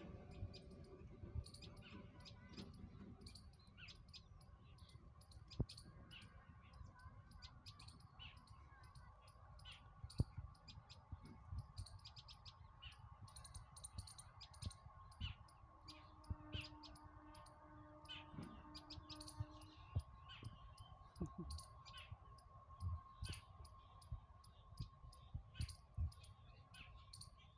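Faint ambience: many scattered, short, high ticks over a low rumble and a faint steady tone.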